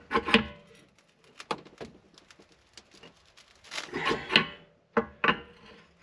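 Open-end wrench scraping and clicking against a brass check valve fitting as the valve is tightened into an RV water heater's hot-water outlet, in several short bursts with pauses between. The loudest bursts come just after the start and about four seconds in.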